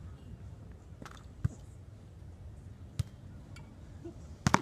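Sharp hits of a volleyball being struck by hands and forearms during a beach volleyball rally, about one and a half seconds apart, the last a quick double hit and the loudest.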